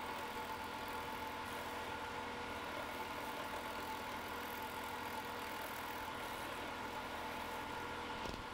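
Grizzly wood lathe running steadily, with a steady motor whine, while a long-handled turning tool cuts into a spinning blank of dry, punky spalted wood.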